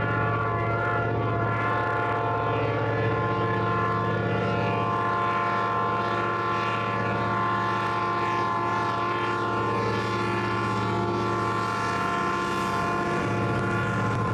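Diesel locomotive of a passenger train running under steady power, its engine giving an even, unchanging drone with many overtones.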